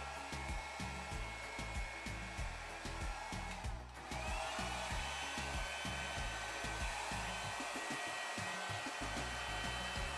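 Hand-held hair dryer blowing air onto wet acrylic paint. It cuts out for a moment about four seconds in, then comes back with a whine rising as the motor spins up again.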